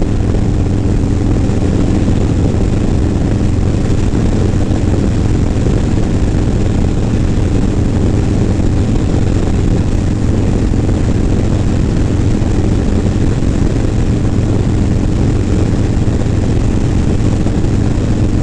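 Harley-Davidson Low Rider S's Milwaukee-Eight 117 V-twin running steadily at highway cruising speed, its pitch and level unchanging, with wind rushing over a helmet-mounted microphone.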